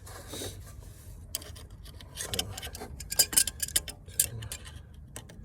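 Grip pliers twisting a new thermostat into its housing on a Dodge Charger 3.6 V6 engine, making irregular metal clicks and taps, busiest about halfway through, as it is turned into its locked position.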